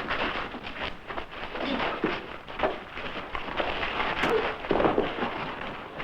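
Fistfight sound effects: a dense, irregular run of blows and scuffling.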